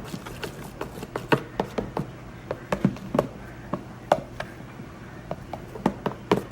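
A utensil stirring thick, fluffy slime of glue and shaving cream in a bowl, with irregular squelches and clicks and taps against the bowl's side.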